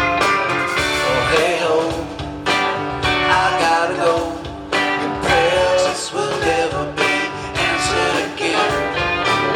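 Live rock band playing a song, with guitar to the fore over a full band.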